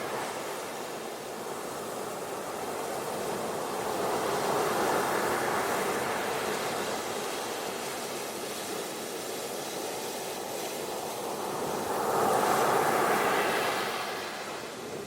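Ocean surf washing onto a beach: a steady rush of water that swells louder twice, about four seconds in and again near the end, as waves break and run up the sand.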